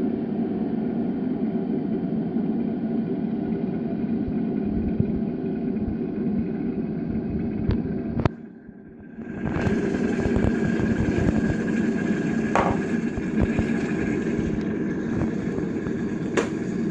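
Morphy Richards Accents 3000 W electric kettle heating water to the boil: a steady low noise that drops out sharply for about a second partway through, then carries on.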